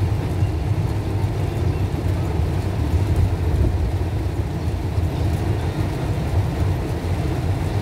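Steady low rumble inside a car's cabin while it drives through heavy rain: engine and tyres on the wet road, with the rain on the car.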